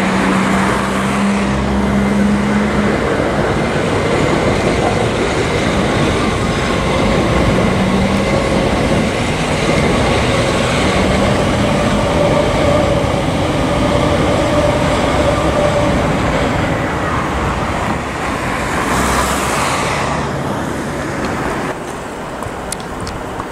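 Class 387 Electrostar electric multiple unit running past on the tracks below, a steady rumble of wheels on rail with humming tones from the train. The sound becomes quieter about 22 seconds in.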